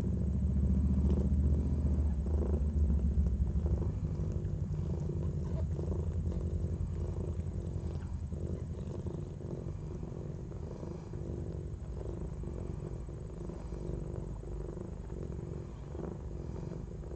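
A tortoiseshell mother cat purring steadily while she licks her newborn kitten just after giving birth. The purr is stronger in the first few seconds and then gradually softer, with faint small clicks from the licking running through it.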